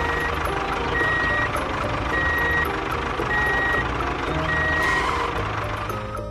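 Vehicle reversing alarm beeping at one steady pitch: five half-second beeps about a second apart, over the noise of a running engine.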